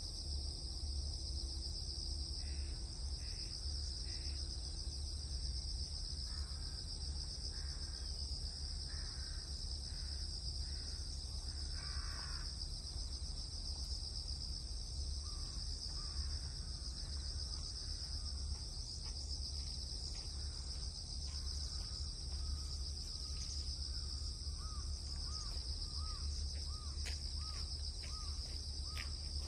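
Outdoor dawn ambience: a steady high-pitched insect chorus over a low rumble, with birds calling now and then. Near the end comes a regular run of short repeated calls.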